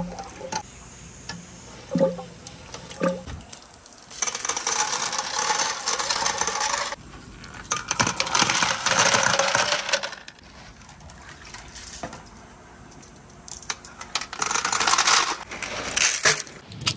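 Masses of glass marbles clattering against each other and a clear plastic tube, in three long rattling pours into a tub of marbles and water, after a few single clinks at the start.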